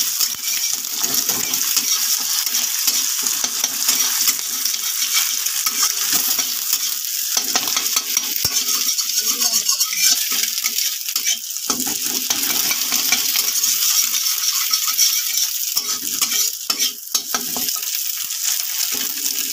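An egg sizzling in hot oil in a metal kadai while a flat metal spatula scrapes and chops it against the pan, breaking it into scrambled pieces.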